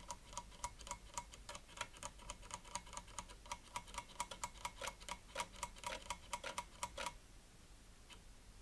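Amiga floppy drive head stepper ticking rapidly, about five clicks a second, stopping about seven seconds in. This is the Amiga's ticking poll for a disk, which runs while the drive's disk-sense microswitch reads no disk inserted.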